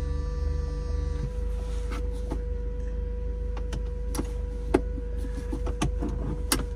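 Electric convertible-top motor on a PT Cruiser GT whining as the top finishes closing, cutting off about a second in, then a series of clicks and knocks as the top is latched by hand to the windshield frame. The 2.4-litre turbo engine idles underneath.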